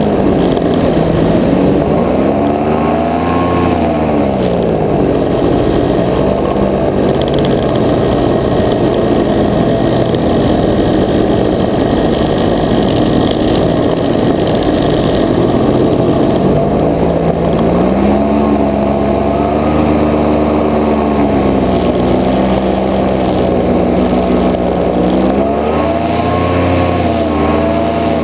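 Paramotor engine and propeller running at flight power close to the microphone, the pitch swinging up and back down several times as the throttle is worked.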